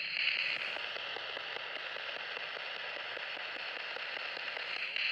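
Spirit box hissing steadily with radio static, with faint rapid ticks as it sweeps through the stations.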